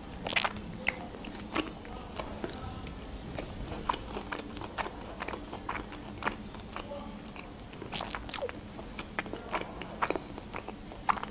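A person chewing sushi rolls close to the microphone: irregular short mouth clicks and smacks.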